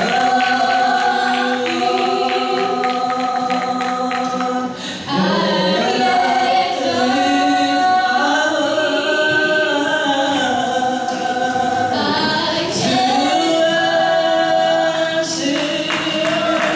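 Voices singing a gospel song over musical accompaniment, in long held notes and shifting chords, with a brief dip in loudness about five seconds in.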